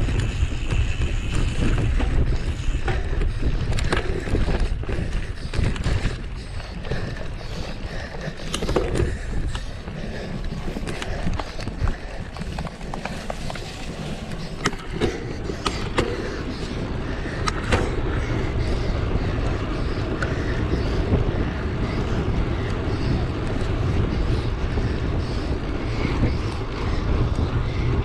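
A mountain bike ridden over rough trail: a steady low rumble of wind and tyres, with many sharp clicks and rattles as the bike jolts over bumps.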